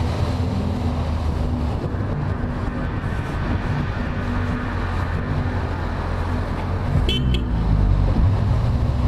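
Motor vehicle engine running steadily with road and wind noise. A brief, higher-pitched chirp comes about seven seconds in.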